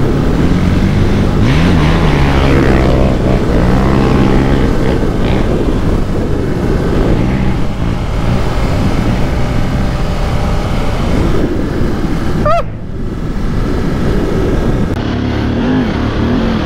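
Off-road motorcycle engine running under load, its pitch rising and falling with the throttle. About twelve and a half seconds in there is a quick rising whine and the sound changes abruptly.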